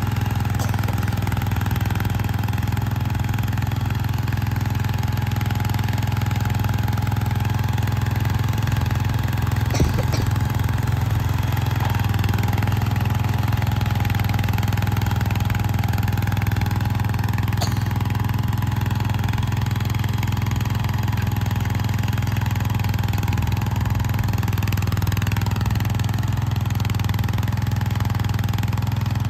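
1970 Montgomery Ward Gilson garden tractor's engine running steadily under load while its rear rototiller churns sod, with a couple of sharp clacks about ten seconds in and again near eighteen seconds.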